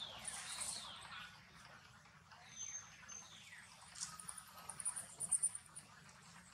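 Young long-tailed macaques giving faint, high squeaks that fall in pitch, in two spells. A cluster of high chirps comes about four to five seconds in and is the loudest part.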